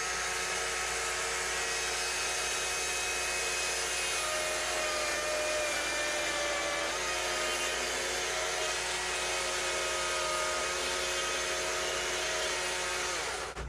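Small-bar chainsaw running steadily while plunge-cutting into a wooden block, its tone shifting slightly under load, then stopping near the end.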